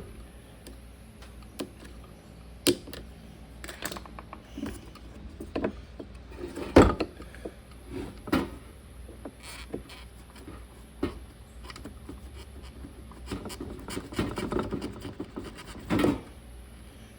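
Handling noise of a rubber water tube being worked onto the bottom of a mini ice maker's water pump motor: scattered knocks and clicks of the parts, the loudest about seven seconds in, with a busier stretch of handling near the end.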